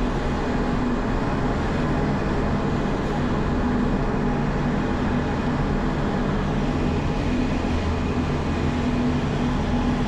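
Gornergrat Railway electric cogwheel (rack) train running steadily downhill, an even rolling and running noise with a low hum.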